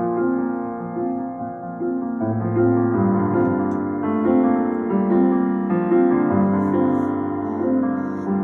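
Piano accompaniment playing sustained chords with a melody line over them, the instrumental part of a ballad.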